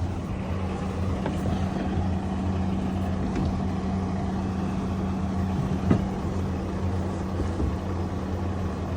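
A steady low mechanical hum from an engine or motor running at a constant speed, with one short knock about six seconds in.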